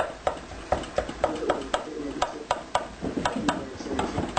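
A cooking utensil knocking and scraping against a pan as ground meat is broken up, in quick irregular strokes about three to four a second.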